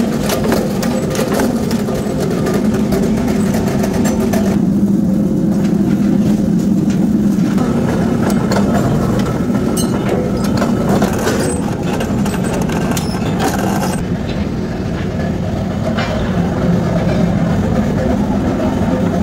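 Forge-shop power presses running steadily with a low mechanical hum, broken by sharp metal-on-metal clanks and knocks as steel rebar is sheared into short billets and hot billets are pressed in a die. The overall sound changes abruptly twice.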